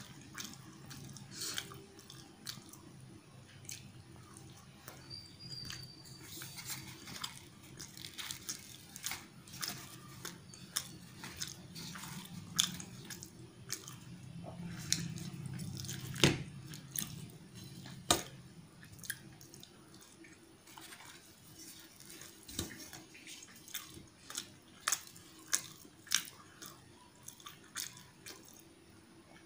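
Close-miked eating sounds: puri (deep-fried wheat bread) torn by hand and dipped in potato curry, then chewed, with many wet mouth clicks and smacks. Two sharper clicks stand out a little past the middle.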